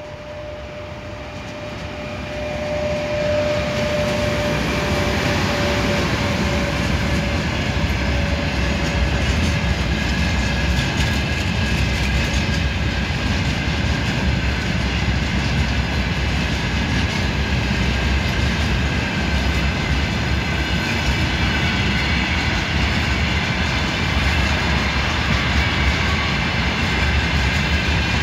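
A heavy iron-ore train hauled by an Sr1 electric locomotive, growing louder over the first three seconds as it arrives. A steady whine fades away within about the first ten seconds. Then the loaded freight wagons roll past with a continuous heavy rumble and faint steady high-pitched ringing from the wheels on the rails.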